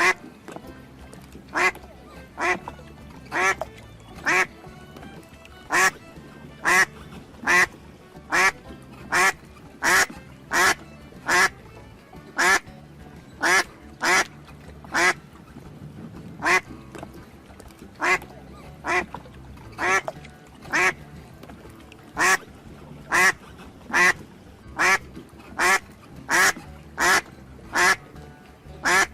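A duck quacking over and over: short, loud single quacks in a steady series, a little more than one a second, over soft background music.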